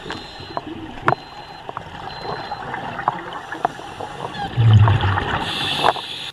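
Underwater sound of a scuba diver breathing through a regulator: bubbles gurgling and hissing, with scattered clicks and a surge of exhaled bubbles near the end. A faint high beep sounds about once a second in the first few seconds.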